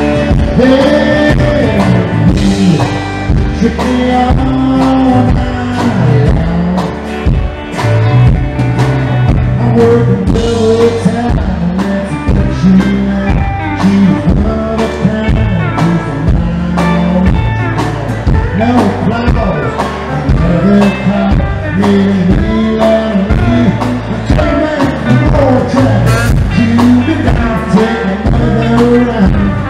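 Southern roots rock band playing live: electric and acoustic guitars, bass and a steady drumbeat, with singing.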